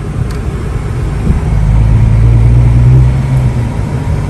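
Supercharged Nissan 370Z's 3.7-litre V6 running at low speed. The steady low engine note grows louder about a second and a half in, then eases near the end.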